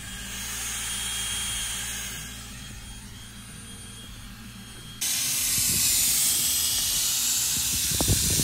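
A low steady machine hum for about five seconds, then, starting suddenly about five seconds in, the loud steady hiss of an airless spray gun spraying liquid coating onto a corrugated roof.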